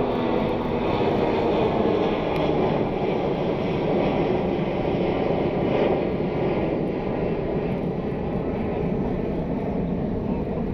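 Boeing 757 jet engines at takeoff power as the airliner departs: a loud, steady rush of jet noise with deep rumble that eases a little near the end.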